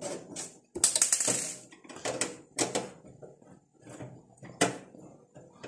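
Screwdriver working the power-supply mounting screws out of a steel PC case: irregular metallic clicks and scrapes, with a longer rasping burst about a second in.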